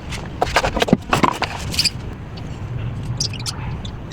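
A quick run of sharp clicks and scraping in the first two seconds, then softer scattered ticks, over a low steady hum.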